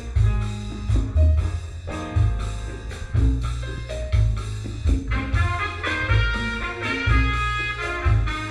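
Recorded music with a heavy bass beat, played through a 1940s Kofler Radio Bassano cinema valve amplifier and horn speakers. Bright, sustained higher melody notes come in about five seconds in.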